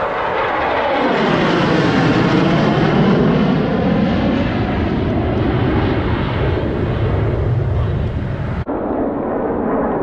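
A pair of low-flying military jets passing overhead: a loud jet roar that swells about a second in and peaks a couple of seconds later. Its tone sweeps down and back up as they pass, with a brief break near the end.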